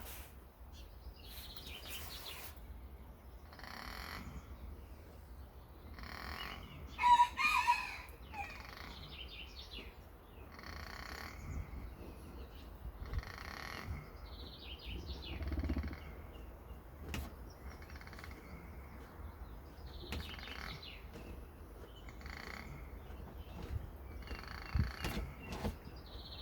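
A series of short animal calls scattered through the stretch, the loudest about seven seconds in.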